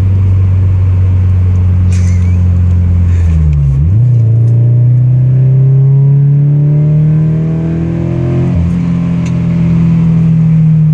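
2013 Scion FR-S's 2.0-litre flat-four running through a PTUNING DS-325 stainless steel dual exhaust, heard from inside the car while driving. The engine note is steady at first, breaks and comes back higher about four seconds in, then rises slowly as the car accelerates, with a brief break about two-thirds of the way through.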